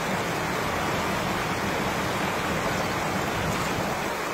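Steady rush of water pouring over rocks in a small river rapid.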